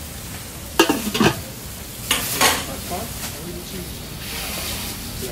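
Meat, halloumi and vegetables sizzling on a hot flat-top griddle, a steady frying hiss. Sharp clattering scrapes of a utensil on metal cut in about a second in and again about two seconds in.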